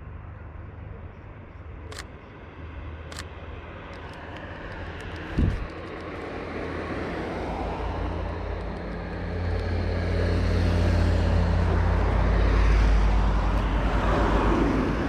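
A motor vehicle's engine rumble growing louder over the second half, as if approaching, loudest near the end. Two sharp clicks about two and three seconds in, and a short low thump about five seconds in.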